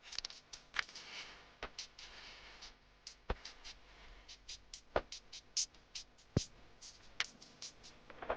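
Background music with a sparse electronic beat: sharp clicking ticks and a heavier knock about every second and a half.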